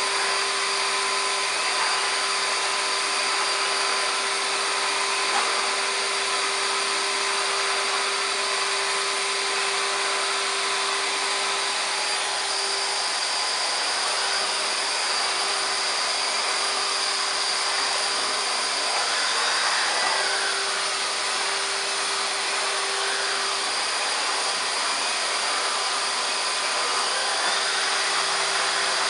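Numatic Charles CVC370-2 1000-watt canister vacuum cleaner running steadily with a constant whine, its air-driven AiroBrush turbo head being pushed back and forth over carpet.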